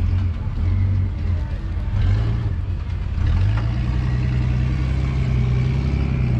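Off-road vehicle's engine revving under load as it climbs a steep dirt hill, in short bursts at first, then held steadily at higher revs from about three seconds in.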